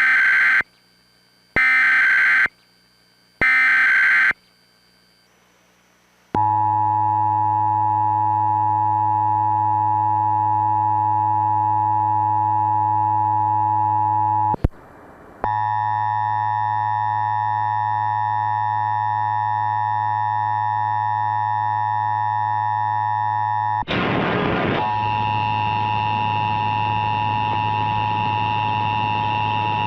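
Emergency Alert System Required Monthly Test sounds in the style of a HollyAnne encoder: three short screeching bursts of SAME digital header data, then a long steady, distorted attention tone that cuts out briefly about 15 s in and resumes. Near 24 s it changes to a harsher, noisier tone.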